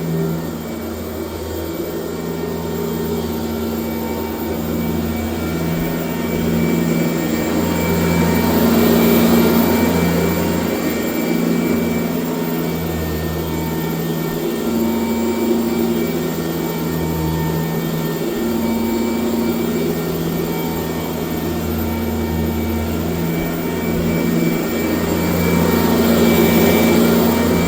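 1996 Sanitaire S663 Type A upright vacuum cleaner running continuously, a steady motor hum with a hissing airflow, swelling louder and easing back every few seconds.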